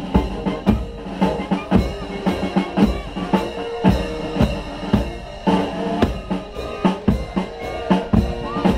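Military march music: bass drum and snare keep a steady beat of about two strokes a second under held band notes.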